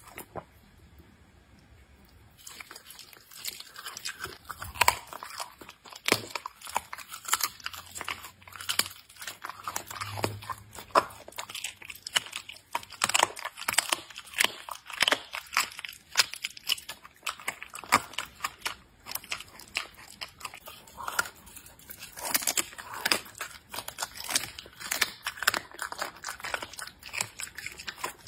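Leopard cub chewing and biting raw meat, with wet, irregular crunching and smacking that starts about two seconds in and keeps going.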